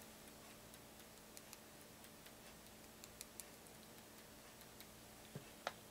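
Near silence with faint, irregularly spaced small ticks and clicks from hands handling shotshell reloading components, two slightly sharper near the end.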